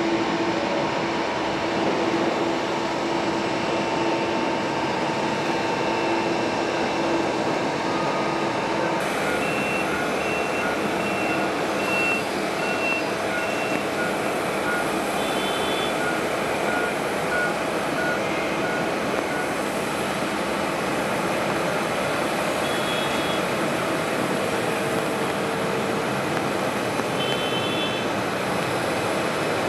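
Airliner jet engines heard across the airfield: a steady rush with a held whine as a Boeing 777 lands. After a cut about nine seconds in, the steady engine noise of a Boeing 787-8 on the runway continues, with a run of short repeated beeps over it and a few brief high chirps later.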